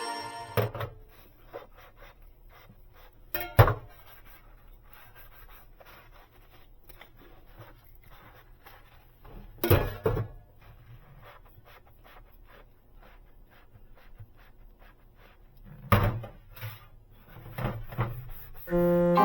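Household handling sounds: a few knocks and thunks of objects being set down or moved, about three and a half, ten and sixteen seconds in and again near the end, with small clicks and taps between them.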